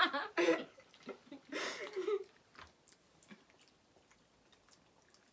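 A person chewing a piece of hard candy, in a few short noisy bursts during the first two seconds, then only faint clicks.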